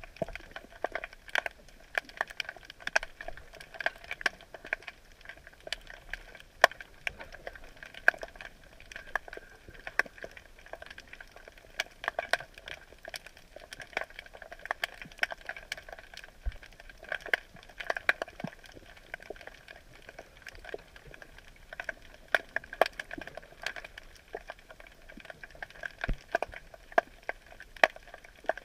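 Dense, irregular crackling clicks heard underwater, several a second, with no pattern to their timing.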